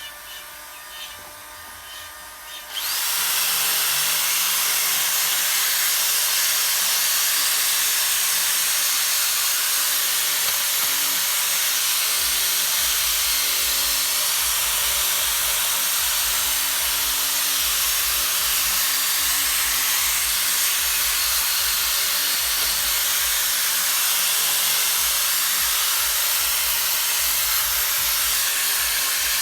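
A handheld electric power tool sanding a carved wooden bird. It starts suddenly about three seconds in, then runs steadily with a high, hissing grind. Before that there are faint hand-tool ticks.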